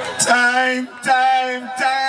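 Male voice singing three long, steady held notes with short breaks between them, with no bass or drums under it.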